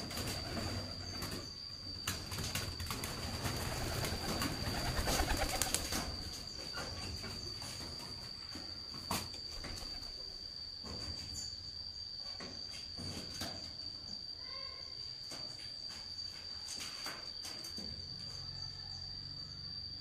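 Pigeons cooing, with rustling and scattered knocks of handling. A thin, steady high whine runs underneath, and a few short pitched calls come near the end.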